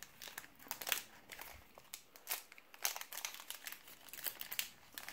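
Brittle, 27-year-old wrapper of a Star Wars CCG A New Hope booster pack crinkling in the hands as it is worked open, a run of irregular sharp crackles.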